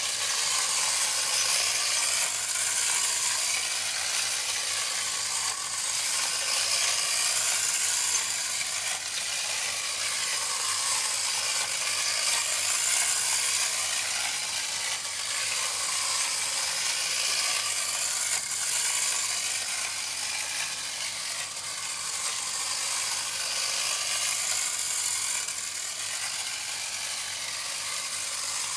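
Clockwork spring motor of a 1956 TPS Joe the Acrobat tin wind-up toy running, a steady rapid ratcheting whir of its gears. It swells and eases every couple of seconds and grows slightly quieter toward the end.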